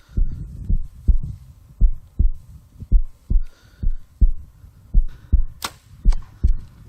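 Heartbeat sound effect: steady pairs of low, dull thumps, a little faster than one beat a second. A single sharp click comes about five and a half seconds in.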